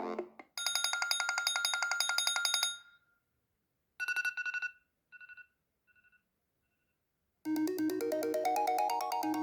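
iPhone 4S ringtones played one after another. A fast, rapidly pulsing electronic trill lasts about two seconds. After a pause a bright chime sounds and repeats three times, each fainter, like an echo. About seven and a half seconds in, a new melodic ringtone starts.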